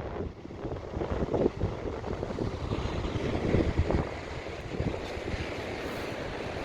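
Heavy surf breaking and churning on the shore, with wind buffeting the microphone in irregular low rumbles.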